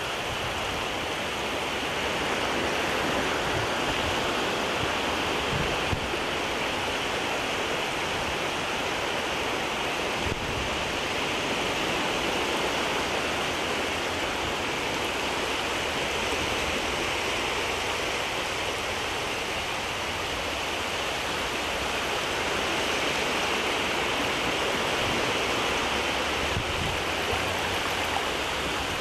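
Shallow sea water washing and rippling at the water's edge: a steady rush that swells and eases slowly.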